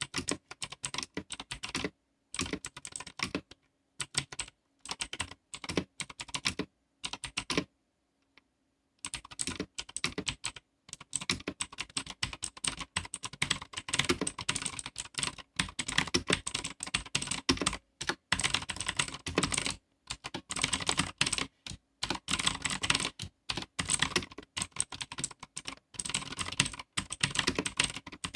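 Typing on a Zebronics Max Plus mechanical keyboard with Otemu blue switches: rapid, clicky keystrokes in short bursts. It stops for about a second and a half partway through, then picks up again in a denser run.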